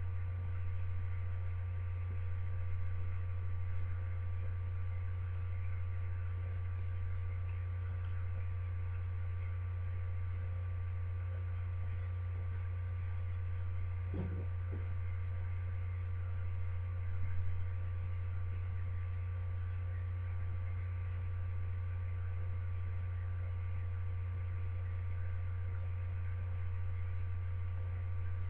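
Steady low hum with fainter steady higher tones above it, and a couple of faint soft knocks a little past halfway.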